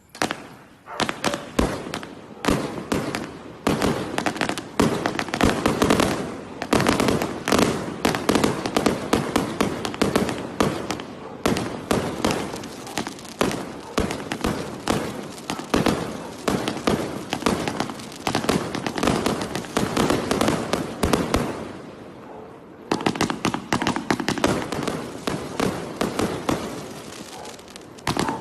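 A 333-shot fan-pattern firework cake with 0.8-, 1.2- and 1.5-inch tubes firing: a rapid, near-continuous string of shots and bangs. It starts abruptly, thins out for a moment about twenty-two seconds in, then picks up again.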